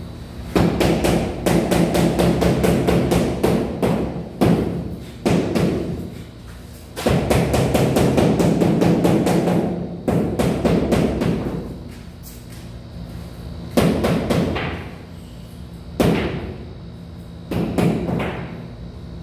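Rubber mallet tapping large floor tiles down to seat them level in the mortar bed: two long runs of fast taps, several a second, then a few single knocks a couple of seconds apart near the end.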